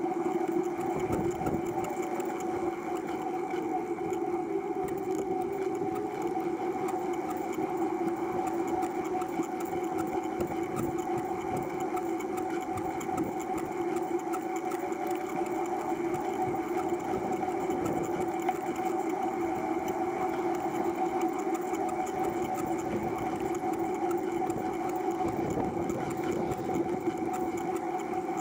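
TerraTrike recumbent tricycle rolling along a paved path: a steady mechanical hum from the tyres and pedal drivetrain, picked up through the frame-mounted camera, with its pitch wavering slightly as the speed changes.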